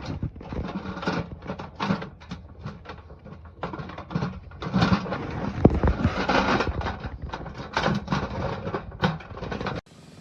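Galvanized steel garden bed panels and rail clips being handled and fitted together: irregular knocking and clattering with rustling.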